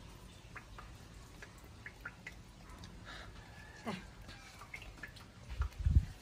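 A baby monkey giving faint, short squeaks and one falling squeal about four seconds in while being rubbed dry in a towel, among scattered small clicks. A few low thumps near the end are the loudest sound.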